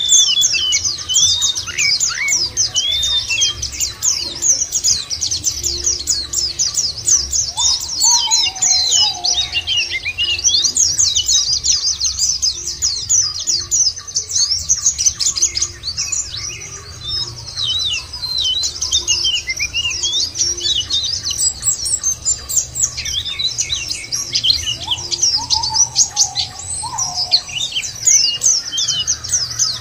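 A flock of white-eyes (pleci, Zosterops) twittering in a dense, continuous stream of high, fast chirps and trills. This is a lure recording played to set caged white-eyes singing. A lower, longer call from another bird cuts in twice, about eight seconds in and near the end.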